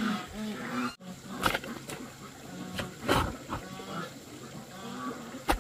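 Animals calling over and over in short, pitched calls, with a few sharp knocks between them.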